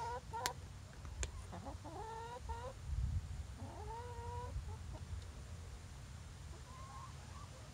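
Domestic hens calling: four drawn-out, wavering calls that bend up and down in pitch, the last one faint near the end, over a steady low rumble. Two sharp clicks in the first second or so.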